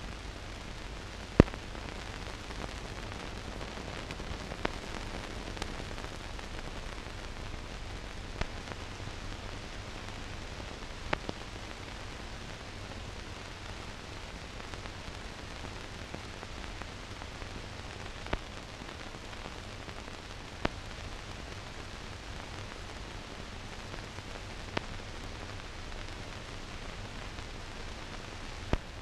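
Steady hiss with a sharp click every few seconds, the loudest about a second and a half in: the noise floor of a silent newsreel's blank soundtrack.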